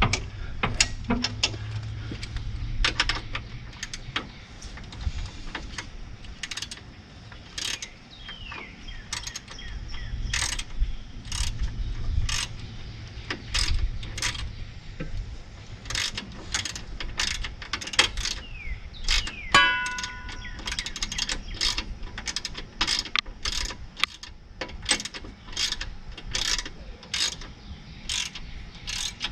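Hand socket ratchet clicking in short irregular runs as bolts are turned, with a brief metallic ring about twenty seconds in.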